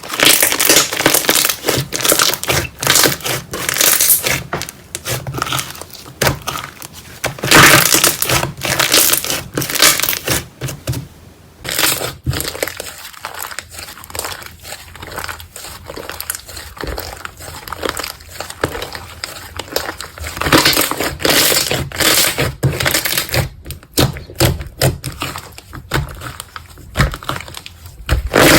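Slime squeezed and worked by hand, a dense run of crackling, clicking pops with a brief lull about eleven seconds in.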